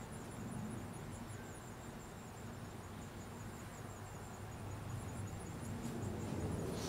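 Faint outdoor ambience: a fast, even run of high-pitched insect chirps over a low rumble that grows a little louder near the end.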